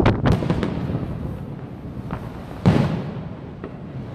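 Aerial fireworks shells bursting: three sharp bangs in quick succession at the start, then softer pops and another loud bang a little under three seconds in, each trailing off in a rumble.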